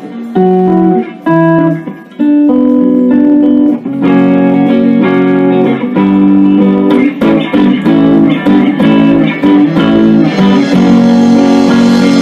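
Live rock band playing an instrumental intro: an electric guitar picks a riff in separate notes, then the band comes in fully about two seconds in, filling out further at about four seconds and brightening near the end.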